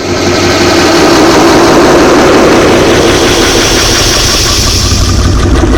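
Toilet flush sound effect layered 64 times over itself, merging into one loud, dense, steady wash of noise with a low engine-like drone.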